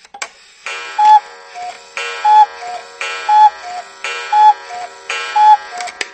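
Intro sound effect with a ringing, alarm-clock-like chime: a falling two-note ding repeated five times, about once a second.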